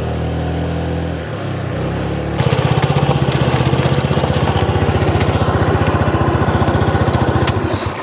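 Motor scooter engine running, settling about two seconds in into a steady, evenly pulsing idle that cuts off just before the end.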